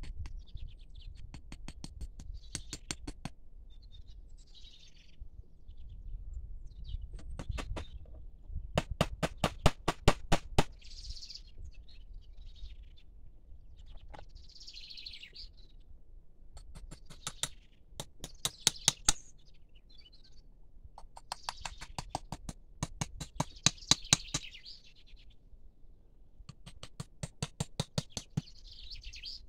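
Birds calling: repeated short, rapid chattering rattles of about eight notes a second, with chirps in between.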